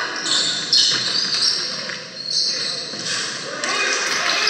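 Live sound of a basketball game in a gym: a ball bouncing on the wooden floor and scattered players' voices, echoing in the hall.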